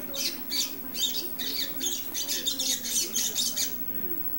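Young double-collared seedeater (coleiro) making its first attempts at the churrio song. It is a rapid run of short, high chattering notes that stops about three and a half seconds in.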